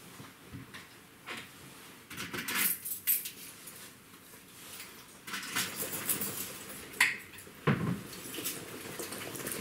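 Hard kitchenware clinking and clattering in irregular bursts of short knocks, with a sharper click about seven seconds in and a duller thump just after.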